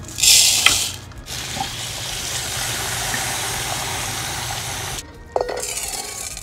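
Dry rice poured from a cup into a wooden bowl, a loud hissing rattle of about a second; then a kitchen tap running steadily into the bowl to rinse the rice. Near the end, a knock and the rustle of wet rice sliding from the bowl into a rice cooker's inner pot.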